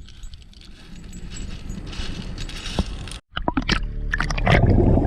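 Rushing noise of water and wind, cut off abruptly about three seconds in, followed by a few sharp clicks. Background music starts near the end.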